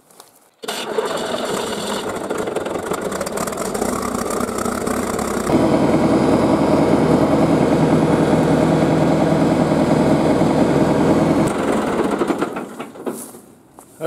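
1976 John Deere 450C bulldozer's diesel engine starting and running. It catches about half a second in and gets louder about five seconds in. It dies away over the last couple of seconds.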